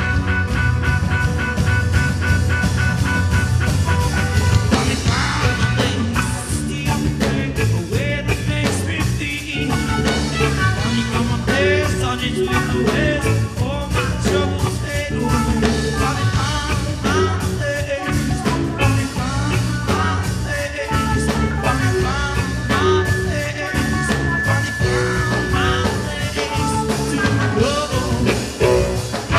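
Live band playing an instrumental section of a rock song, a lead melody line weaving over bass and a steady beat.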